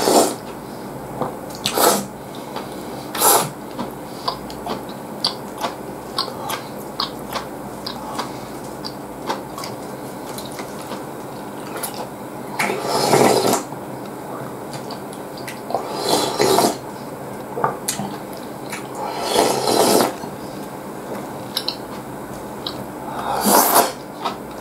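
Slurping ramen soup straight from the bowl: about seven loud slurps at irregular intervals, with small mouth and bowl clicks in between.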